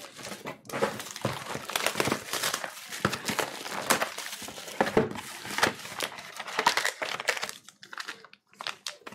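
Wrappers of trading-card packs crinkling and crackling irregularly as the packs and box are handled and opened, thinning out near the end.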